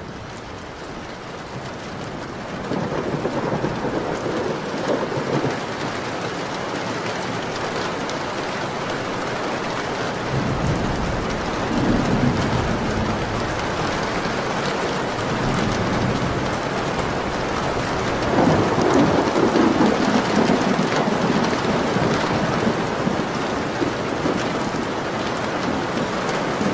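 Steady heavy rain falling and pattering on surfaces, with low rolling rumbles that swell three times, about 3, 11 and 19 seconds in.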